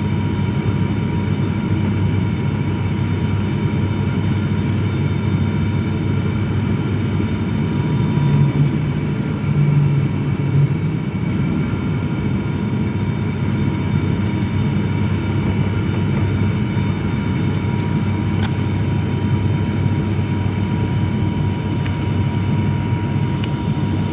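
Airliner engines droning steadily inside the passenger cabin: a continuous low hum with a few steady whining tones above it. The lower hum swells briefly about a third of the way in.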